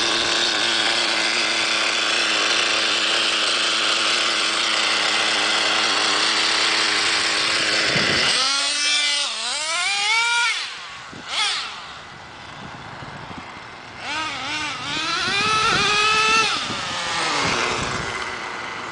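Traxxas Jato 3.3's small two-stroke nitro engine running steadily close by for about eight seconds, then revving up and down in several surges as the truck speeds off. A second series of revs follows a few seconds later, fading as the truck gets farther away.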